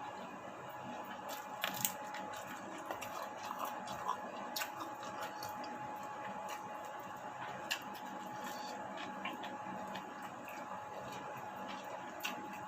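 Close-miked eating sounds: chewing with scattered sharp clicks and smacks, over a steady high hum.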